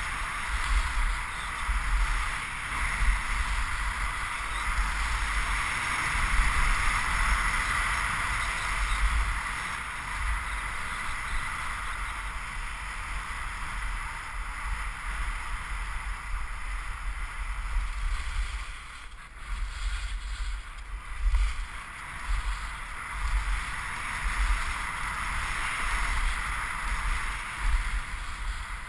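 Skis sliding and scraping over the snow of the piste during a descent, heard as a steady hiss, with wind buffeting the helmet-mounted GoPro's microphone as a gusty rumble. The hiss eases for a few seconds a little past halfway, then picks up again.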